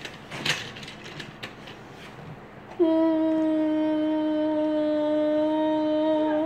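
A few light clicks and knocks, then, about three seconds in, a child's voice hums one long, steady note for about three and a half seconds.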